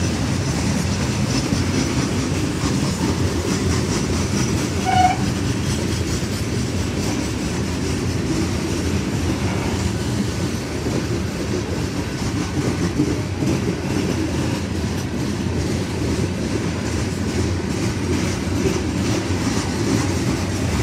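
Loaded coal hopper cars of a long freight train rolling steadily past, wheels on rail making a constant low rumble. A brief squeak about five seconds in.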